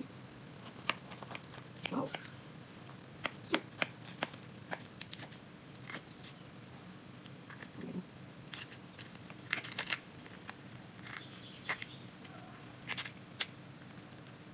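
Flaky puff-pastry crust of a baked chicken pie crackling and crunching as a knife cuts through it and a fork breaks off a piece, in irregular sharp crackles over a faint steady hum.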